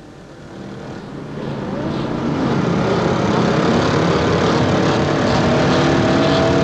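A pack of motorcycle engines approaching, growing louder over the first three seconds, then running steadily.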